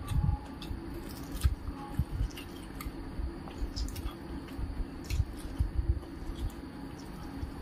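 Close-miked wet squishing of rice and lau dal being mashed together by hand, with chewing and small mouth clicks in between.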